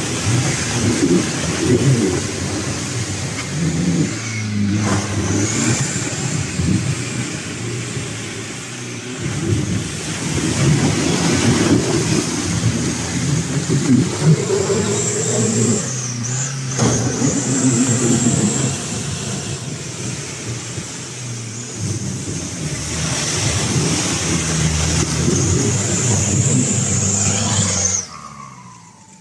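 Nissan Patrol Y61's ZD30 turbodiesel engine revving hard under load, its note rising and falling again and again as the big off-road tyres spin and scrabble on loose rock and mud. The sound drops away suddenly near the end.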